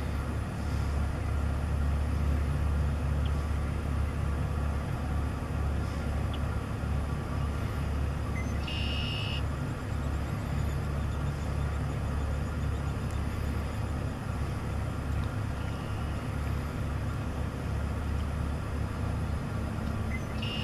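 Red-winged blackbirds singing in the background, one clear song (a short note then a buzzy trill) about nine seconds in and another near the end, with faint calls between, over a steady low rumble.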